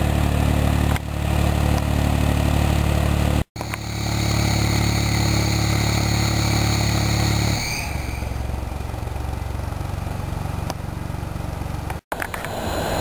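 Dv12 diesel locomotive's SACM MGO V16 engine running at a steady idle, in three clips cut together with brief silent breaks. In the middle clip a faint high whine rides over the engine and stops about halfway through as the engine sound drops to a quieter, lower run.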